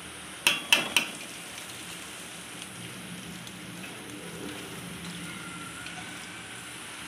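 Three sharp clinks of kitchenware in quick succession about half a second to a second in. Then water drips and trickles as soaked rice is lifted out of its soaking water in a wire mesh strainer, over a steady hiss.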